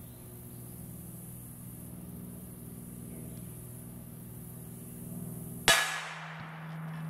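A 7mm-08 rifle bullet striking a chain-hung AR500 steel silhouette target with one sharp clang near the end, the plate ringing and fading over about a second. Before the hit, a steady low hum.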